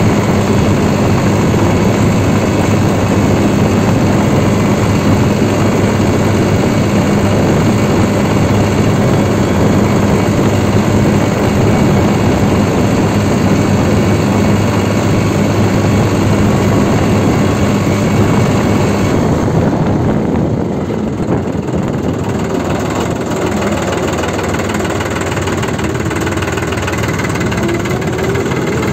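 New Holland 3630 Super Plus tractor's three-cylinder diesel engine running steadily at road speed, heard from the driver's seat. About two-thirds of the way through, the throttle is eased and the engine note drops and quietens as the tractor slows. Near the end the pitch starts to rise again.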